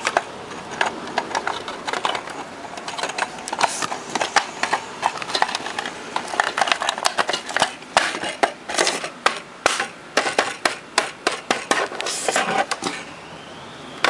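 Irregular plastic clicks and knocks, several a second, from hands handling the wireless microphone and its receiver close to the recording microphone.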